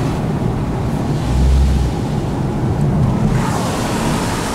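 Road and engine noise inside a moving car: a steady low rumble of tyres and engine. A brighter hiss of air joins it about three seconds in.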